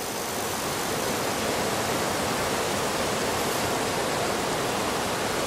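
Steady, even rushing noise, like white noise or rushing water, swelling up over the first second and then holding level.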